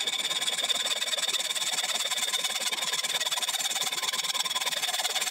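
Hacksaw cutting through a brass rod clamped in a lathe's three-jaw chuck: a steady metallic rasping of quick back-and-forth strokes that starts abruptly.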